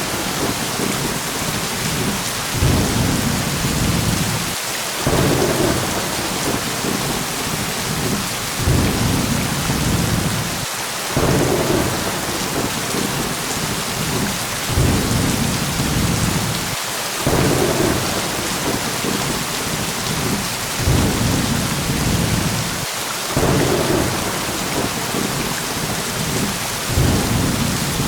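Steady heavy rain hissing, with low rolls of thunder swelling and fading every few seconds.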